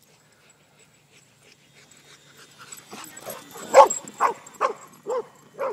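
Dog barking, a run of sharp barks about two a second starting around three seconds in, the first of the loud ones the strongest.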